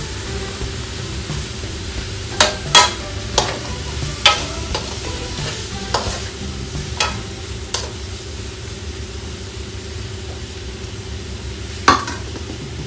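Tomatoes and other chopped ingredients sautéing in a metal wok with a steady sizzle, while a metal spoon stirs them and knocks and scrapes against the pan about nine times.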